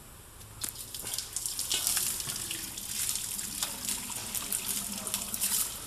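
Engine coolant gushing out of a disconnected lower coolant hose and splashing down as the cooling system drains, starting about half a second in.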